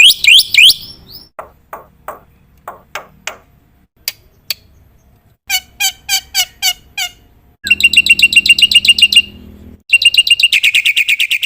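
Black-winged myna (jalak putih) singing a varied, loud song: quick chirps, a string of falling whistles, notes repeated about four times a second, then a fast buzzy series and a rapid trill near the end.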